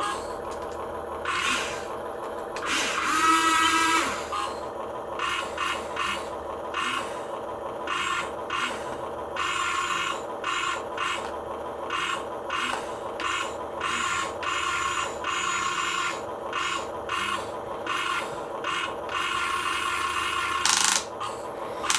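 Small electric drive motors and gearbox of a 1/24-scale RC Caterpillar tracked construction vehicle whirring under load as it drags another RC car, with repeated ratchety clicking and a brief rising whine about three seconds in.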